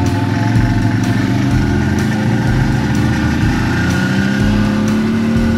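ATV engine running steadily while the quad rides a dirt road, its pitch rising slowly about four seconds in, with scattered light clicks over the engine.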